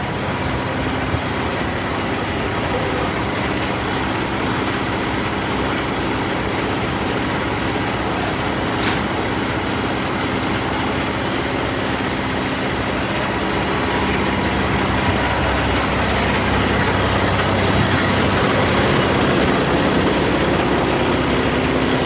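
Heavy truck's diesel engine idling steadily, a low hum under a noisy running sound, growing slightly louder in the second half.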